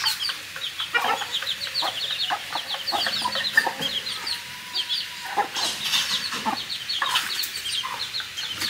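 Chickens clucking and peeping, many short high calls over one another, with a few light knocks.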